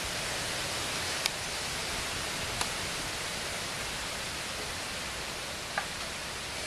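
Steady, even hiss with three faint short ticks as wet hands handle a softshell turtle.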